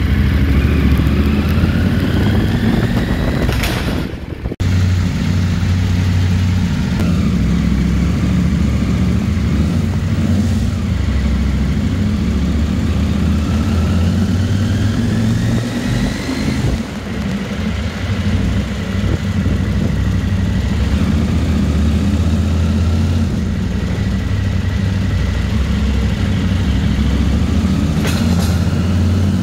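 KTM motorcycle engine running as the bike rides at low speed through a concrete parking garage, its pitch rising several times as it accelerates. The sound breaks off briefly about four seconds in.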